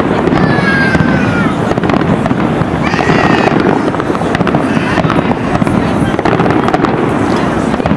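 Aerial firework shells bursting and crackling in a dense, continuous run. High whistles slide down in pitch about a second in and again around three seconds.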